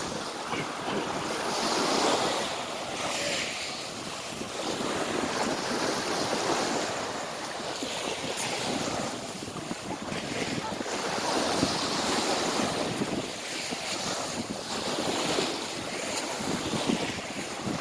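Small waves breaking and washing up a pebble shore, the surf swelling and easing every few seconds, with wind buffeting the microphone.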